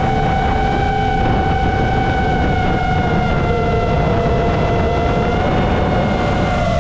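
FPV quadcopter's four brushless motors (Lumenier Zip V2 2407, 1700 kV, on 6S) and 5.1-inch props whining steadily, the pitch wandering slightly with the throttle and dipping near the end, over a low rumble of wind on the onboard GoPro's microphone.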